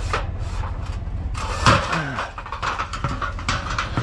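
Knocks and clatter of items being stacked in the bed of a pickup truck, over a steady low rumble.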